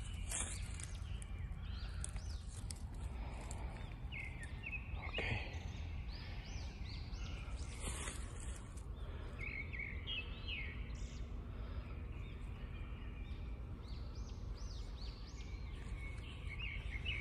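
Woodland ambience: small birds chirping in short, repeated high calls, coming in clusters, over a steady low rumble.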